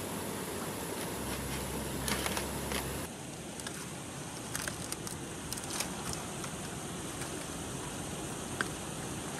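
Steady outdoor background hiss with a few faint, light clicks and taps from bamboo poles and lashings being handled.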